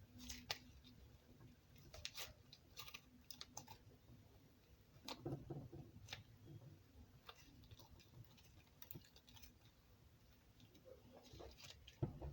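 Faint, irregular clicks and soft squishes of butter slime being poked, pressed and stretched by hand for ASMR.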